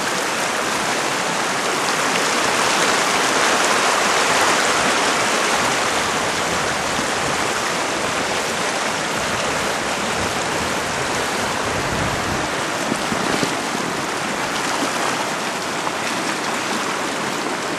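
Shallow, rocky river rushing over and around boulders: a steady, loud rush of riffles and small rapids close to the microphone.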